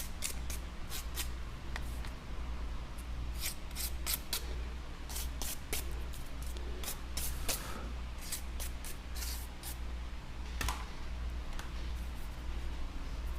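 A small hand tool scraping and clicking in short, irregular strokes on an iPad Air's frame, clearing leftover bits of broken glass before new adhesive goes on.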